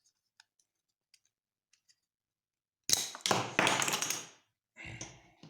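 Plastic action-camera mount accessories being handled: a few faint clicks, then about three seconds in a loud rustling scrape lasting about a second and a half, and a shorter one near the end.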